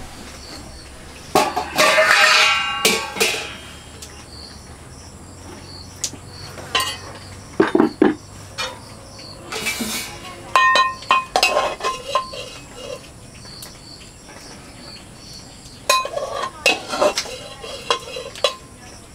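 Metal kitchenware clattering as food is served: a ladle knocking and scraping against a pot and metal plates being handled, in several bursts with short metallic rings, the loudest about two seconds in. Crickets chirp faintly underneath.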